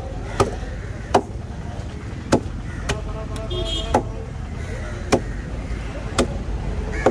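A heavy knife chopping through yellowfin tuna flesh and striking a wooden cutting table: about seven sharp chops, roughly a second apart.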